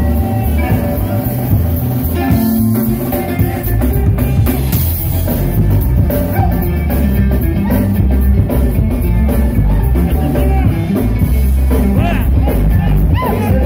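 Live band playing a cover song loudly, with drums, bass and singing.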